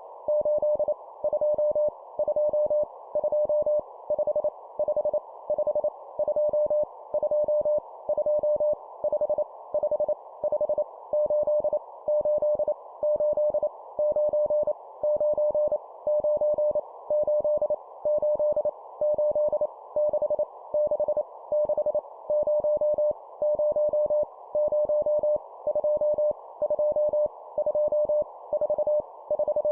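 Morse code (CW) practice tone keyed at 25 words per minute, sending random numbers as dots and dashes in one steady mid-pitched beep, in groups separated by short pauses. A faint steady hiss runs underneath.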